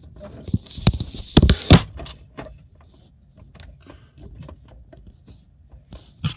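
Handling noise of a phone being moved and set down: rubbing against cloth and several sharp knocks in the first two seconds, then scattered light clicks and rustles.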